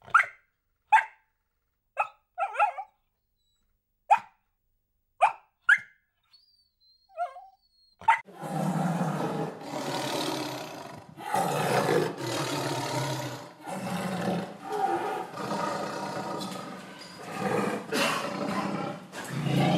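Young puppies giving short high yelps, about seven in the first eight seconds, then a tiger growling and roaring in long, loud, deep calls that swell and fade for the rest.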